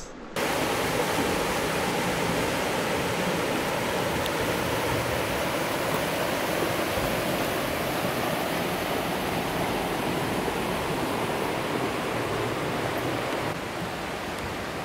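Mountain trout stream rushing over rocks, a steady wash of flowing water that gets a little quieter near the end.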